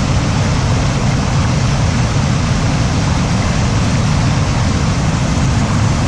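River water rushing over and between boulders in small cascades: a loud, steady rush with a heavy low rumble.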